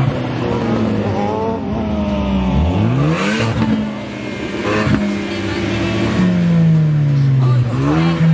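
Ford Focus ST's turbocharged four-cylinder engine being revved in blips, its pitch climbing sharply and falling back several times, with two short sharp noises about 3 and 5 seconds in.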